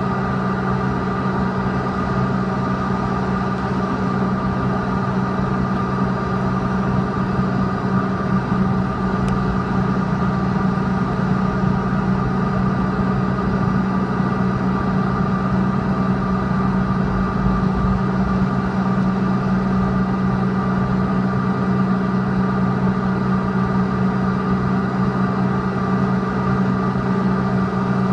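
Cabin noise of a CRJ-200 regional jet taxiing, its two rear-mounted General Electric CF34 turbofans at low taxi thrust: a steady hum with several held tones, not yet at takeoff power.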